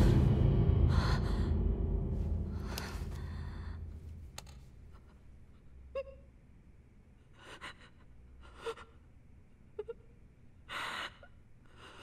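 A woman crying with her hand pressed over her mouth: short, muffled gasping sobs and a few small whimpers, spaced a second or two apart, with the sharpest gasp near the end. A low sound dies away over the first four seconds.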